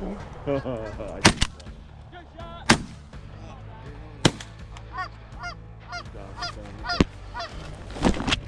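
Geese honking repeatedly while shotguns fire several loud shots, a close pair about a second in and then single shots spread through the rest.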